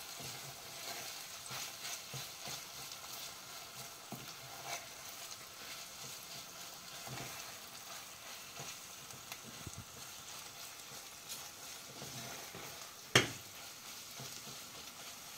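Wooden spoon stirring and scraping onion, meat and tomato and pepper paste frying quietly in olive oil in a stainless steel pot, with a soft steady sizzle: the paste being fried until fragrant. A single sharp knock about 13 seconds in.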